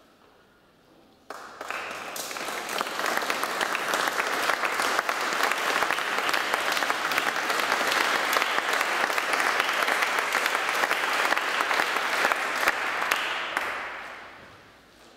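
Audience applauding: the clapping starts suddenly about a second in, holds steady, and fades out near the end.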